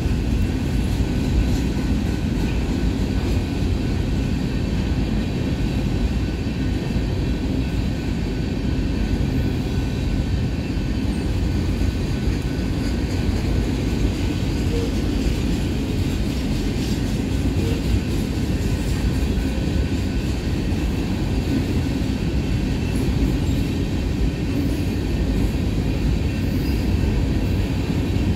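Covered hopper cars of a freight train rolling past: a steady low rumble of steel wheels on rail, with a faint steady high whine above it.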